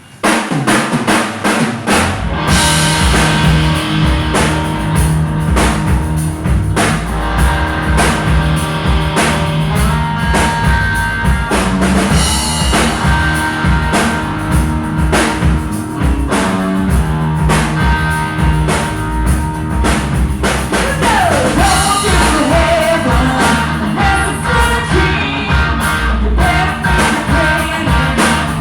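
Live rock band playing through amplification, with a drum kit and sustained bass and guitar notes. It starts abruptly right at the start.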